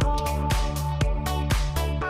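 Electronic dance music with a steady beat, about four drum hits a second, over a heavy bass line.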